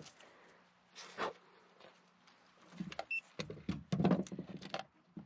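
Small clicks, knocks and rustles of hand tools and fiber-optic cable being handled while a fiber drop is prepped for fusion splicing, busier in the second half, over a faint steady hum.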